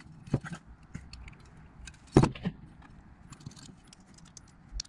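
Small metal parts clicking and clinking as a screw is handled in the fingers over an air compressor's pump head, with a sharper knock a little after two seconds in.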